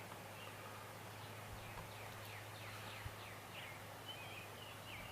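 Faint bird calls, a run of short falling chirps about two or three a second starting about two seconds in, over a steady low hum.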